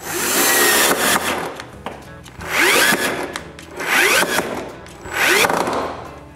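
Cordless drill/driver driving screws through a steel hinge into wood, in four runs: a long one of about two seconds, then three shorter ones. Each run whines upward in pitch as the motor speeds up.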